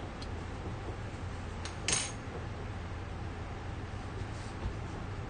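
A metal utensil clinks once against a pan about two seconds in, with a short bright ring, over a steady low hum.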